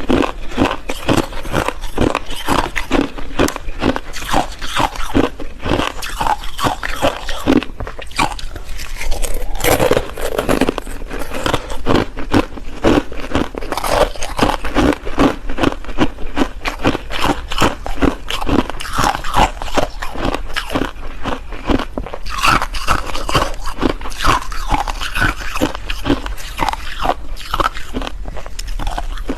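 Ice being bitten and chewed, a rapid, continuous run of loud, sharp crunches and crackles.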